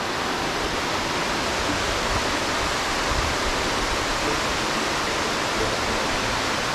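Mountain creek cascades rushing steadily down a steep rock chute, a constant full roar of white water from a stream running high.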